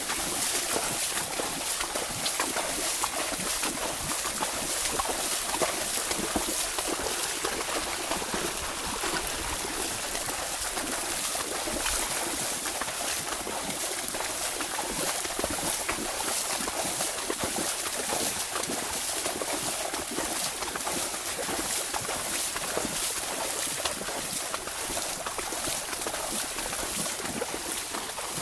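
Continuous splashing and sloshing of water from a horse wading through a flooded paddy field, with many small irregular splashes.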